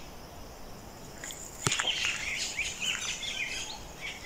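Birds chirping in the forest: a run of short, quick chirps starts about a second and a half in, just after a single sharp click.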